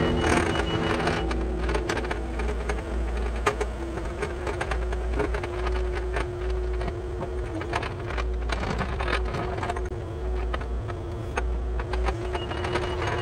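Kubota mini excavator's diesel engine running steadily with a droning hum, with scattered knocks and cracks as the machine works through rock and brush.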